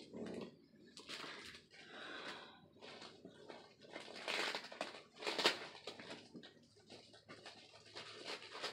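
Packing paper rustling and crinkling in irregular bursts as items are pulled out of a mail-order package, with the loudest crackles about four and a half and five and a half seconds in.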